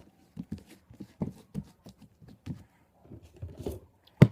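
Pink butter slime being squished and poked by hand, giving soft irregular pops and clicks several times a second, with one sharper slap near the end.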